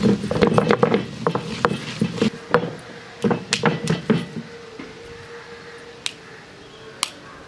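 Stone roller rolled back and forth over an ammi grinding slab, crushing dried red chillies and whole spices with a rumble full of small clicks. About four and a half seconds in the rolling stops, and a couple of sharp clicks follow as the ground masala is scraped together on the stone.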